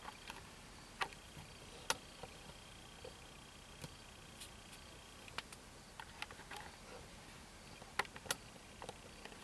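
Quiet background hiss broken by scattered sharp clicks and ticks at irregular intervals, the loudest a pair near the end. A faint steady high tone stops about five seconds in.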